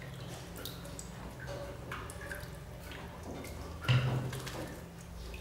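Water dripping and splashing into a basin of bathwater from a wet baby monkey held just above it, in scattered small drops, with one louder splash about four seconds in.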